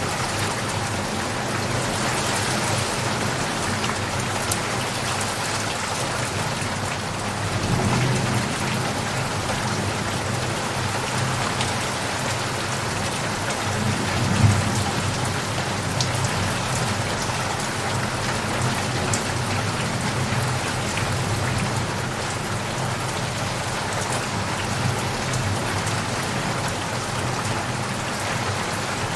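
Steady rain falling, with low rumbles of thunder twice: once about a quarter of the way in and again, stronger, near the middle.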